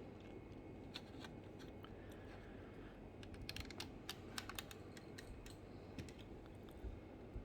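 Scattered light clicks and taps from a 1:18 diecast model car and its packaging being handled, with a quick run of clicks a little past the middle.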